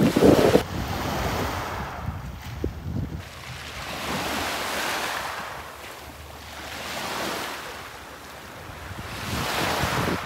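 Sea waves washing in slow swells every couple of seconds, with wind buffeting the microphone, loudest in a gust just as it begins.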